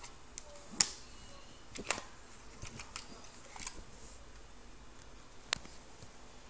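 Handling noise: a few scattered light clicks and taps at uneven intervals, the sharpest about a second in and another just before two seconds.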